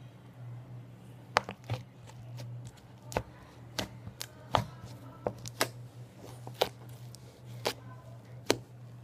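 Sticky homemade slime being squeezed and pulled by hand, giving irregular sharp pops and clicks, about a dozen, over a steady low hum.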